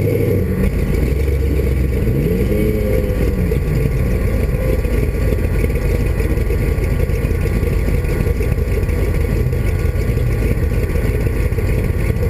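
Off-road race vehicle's engine running under way, a loud steady drone mixed with rumble and noise, with a brief rise and fall in pitch about two to three seconds in.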